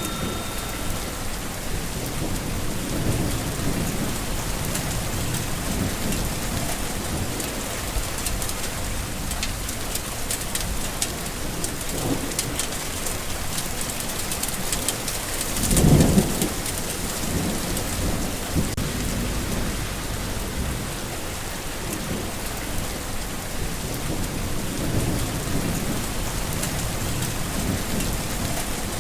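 Steady rain falling, a continuous hiss with soft low swells, and one brief louder low rumble about halfway through.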